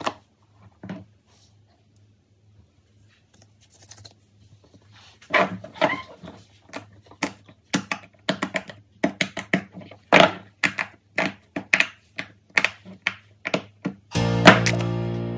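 Fidget toys being handled: a run of sharp, irregular clicks and pops, about two to three a second. Near the end a sustained musical tone comes in.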